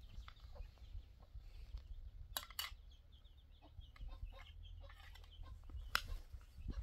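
Domestic chickens clucking faintly, with a few sharp clicks or knocks: two close together about two and a half seconds in, another near the end. A low rumble runs underneath.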